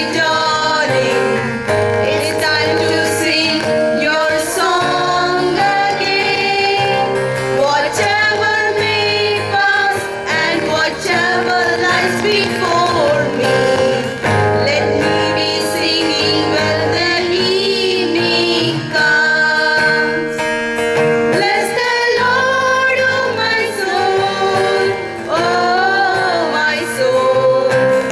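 A choir singing a prayer song, led by female voices over a sustained instrumental accompaniment.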